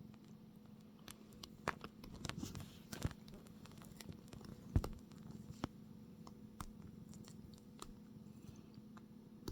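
Domestic cat purring faintly and steadily, with scattered small clicks and rustles and one sharp thump about five seconds in.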